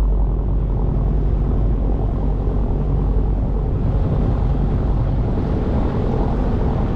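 Motorboat engine running steadily under way, a low drone with a hiss over it.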